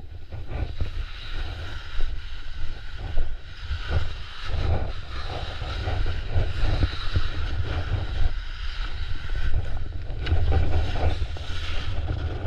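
Wind buffeting an action camera's microphone as skis scrape and carve over snow at speed. The rumble and the hiss of the edges rise and fall in uneven surges.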